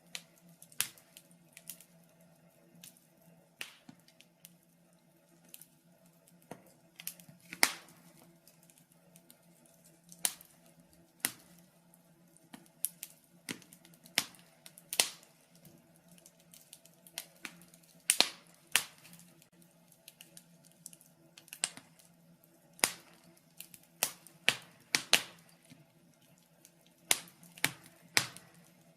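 Wood fire in a fireplace crackling: irregular sharp pops and snaps, a few much louder than the rest, over a faint steady low hum.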